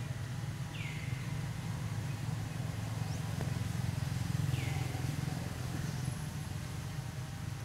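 Steady low engine drone, like passing traffic, swelling slightly midway. Two short high chirps slide downward over it, about four seconds apart.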